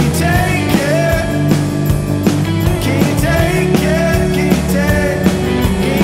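Rock song playing: a full band with a steady drum beat and a melodic lead line that bends up and down over it.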